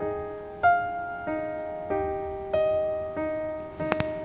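Background music: slow solo piano, a single note or chord struck about every two-thirds of a second and left to fade. A brief sharp click comes near the end.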